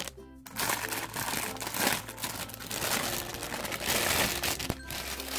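Clear plastic wrapping crinkling and crackling as hands work it open. The crackling is dense and irregular and starts about half a second in.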